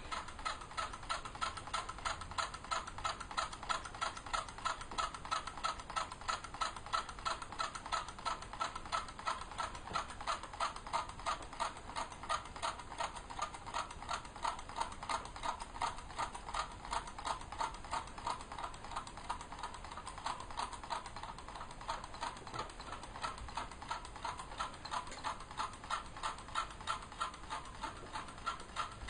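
Homemade Stirling engine built from tin cans, a balloon and a CD, running steadily on heat with an even clicking rhythm of a few clicks a second.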